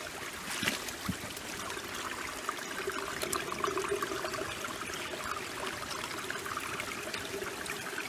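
Shallow river water running steadily through a small gold-prospecting sluice box, flowing over its riffles.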